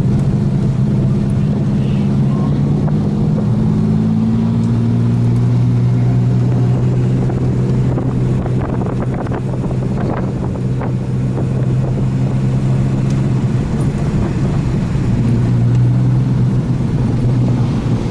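Turbocharged Ecotec V6 engine idling steadily, with a small change in its note a few seconds in.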